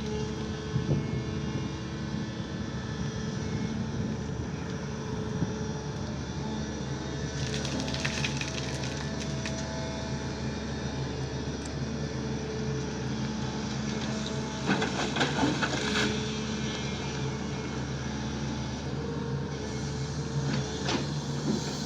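SANY excavator's diesel engine running steadily, with clusters of knocks and clatter about eight seconds in and again around fifteen seconds in.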